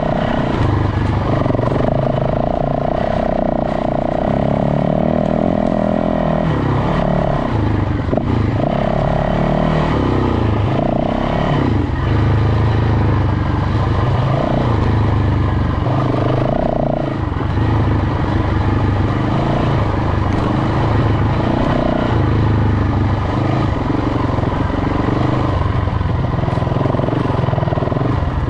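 Off-road motorcycle engine running at low trail speed, the throttle opening and easing off every second or two.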